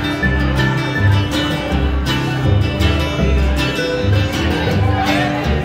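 A live acoustic string band plays an instrumental bluegrass-style passage. Upright bass notes are plucked about twice a second under strummed steel-string acoustic guitar and a small eight-string ukulele.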